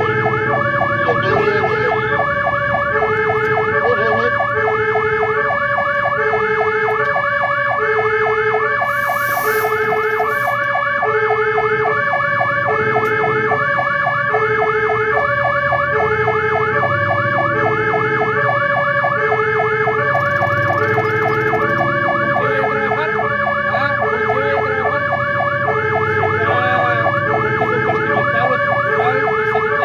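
Fire engine sirens sounding while the truck drives on a call: a two-tone hi-lo siren alternating about once a second, layered with a fast warbling siren, over the truck's engine running. A short hiss breaks in about nine seconds in.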